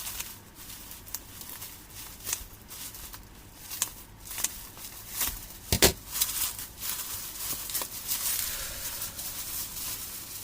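Packaging being handled by hand: scattered crinkles and clicks, a knock about six seconds in, and steady rustling near the end.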